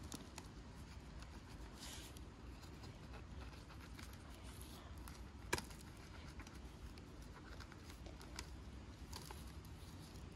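Faint soft scraping and small clicks of a knife trimming and cleaning a cluster of oyster mushrooms, with one sharp click about five and a half seconds in.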